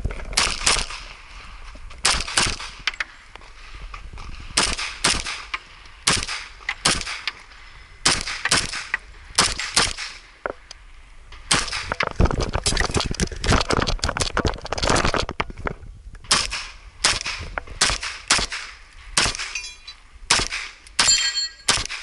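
STI 2011 Edge .40 S&W pistol firing a USPSA stage, shots coming mostly in quick pairs with short gaps between strings.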